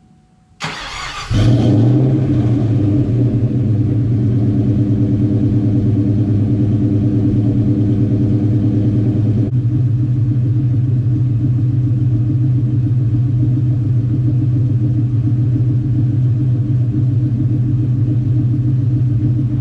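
Ford Mustang Mach 1's naturally aspirated 4.6-litre DOHC V8 starting up about a second in, then idling steadily through the rear exhaust with a choppy lope, the cam chop of a lumpier camshaft.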